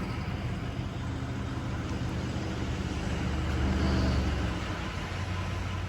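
Pickup truck engine running with a steady low hum, growing a little louder about three to four seconds in.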